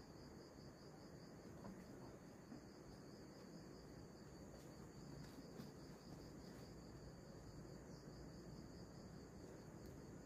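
Faint, steady high-pitched insect chirring that pulses several times a second, with a few soft ticks around the middle.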